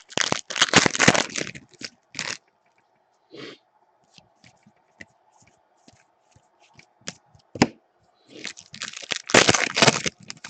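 A trading-card pack wrapper crinkling and tearing, with cards being handled: two longer spells of crinkling, one at the start and one near the end, and scattered clicks and taps in between.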